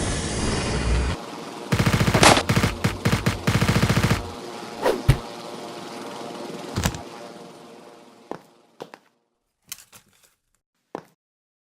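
Recreated automatic gunfire: rapid bursts of shots over about two and a half seconds, then two single heavy hits with a fading tail. A few faint separate clicks follow before silence.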